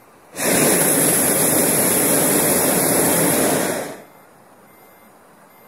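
Hot-air balloon's propane burner firing in a single blast of about three and a half seconds: a loud, steady rushing that starts abruptly shortly after the start and cuts off again.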